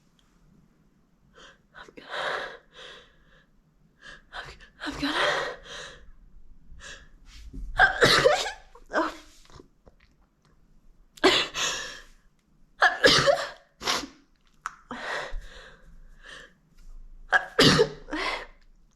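A young woman sneezing again and again, with breathy, gasping build-ups between the sneezes. The sharpest and loudest come about eight seconds in, three more close together between eleven and thirteen seconds, and one near the end.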